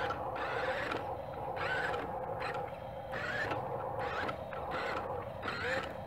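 Electric drive motor and gearbox of a radio-controlled Western Star 49X dump truck whining as it drives over gravel, the whine rising and falling in pitch with the throttle.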